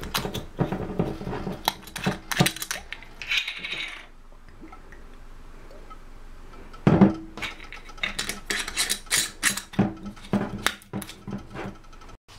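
Kitchen clatter as cookware and utensils are handled around a skillet on the stove: a run of sharp clinks and knocks, a quieter stretch in the middle, a louder knock about seven seconds in, then more quick clinks.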